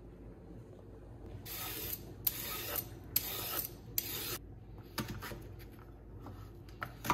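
A Y-shaped vegetable peeler scraping along a raw carrot in four long strokes, then a few sharp taps of a knife on a plastic chopping board as swede is cut into cubes.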